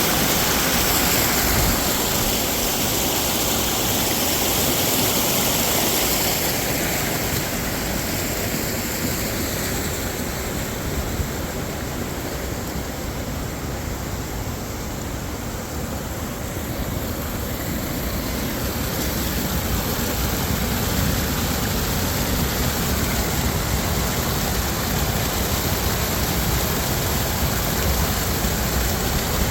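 CFMOTO CForce 500 ATV engine running while the quad is ridden along a trail, under a steady rushing noise. The sound eases off somewhat a quarter of the way in and builds back up past the middle.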